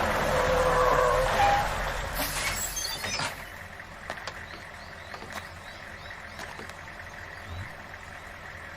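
A loud rushing noise that fades after about three seconds into a quieter steady ambience with faint high chirps.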